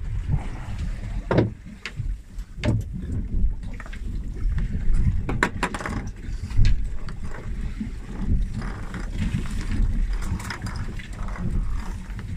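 Steady low rumble of wind on the microphone and boat noise at sea, broken by several sharp knocks and bumps from handling on deck.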